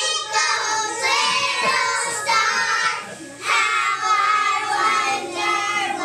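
Young children singing a song together in phrases, with a short break between phrases about three seconds in.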